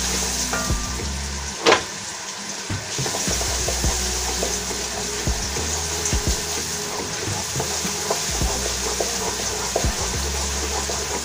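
Onions sizzling as they fry in hot oil, stirred with a wooden spoon that clicks and scrapes against a granite-coated pot, with one sharper knock a little under two seconds in.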